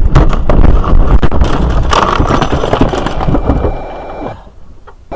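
Loud vehicle noise from a dashcam recording: a heavy low rumble with rapid clattering knocks, dying away about four seconds in.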